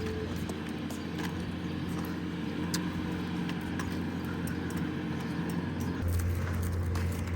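Engine noise from passing traffic or nearby running machinery, a steady low hum that grows louder about six seconds in, with light clicks over it.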